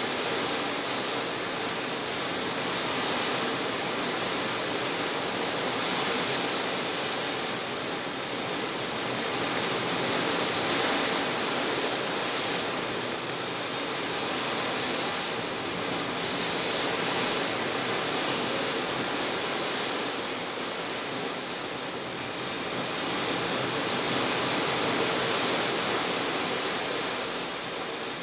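Steady rushing noise of wind and sea passing a cruise ship underway, swelling and easing every few seconds.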